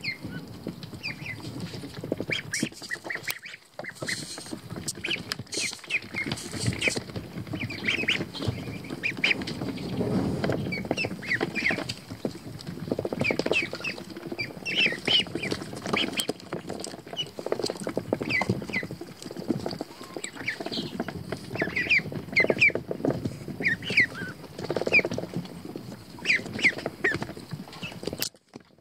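American Pekin ducklings peeping, many short high calls scattered throughout, over continual scuffling and rustling of the wood-shaving bedding as they move about.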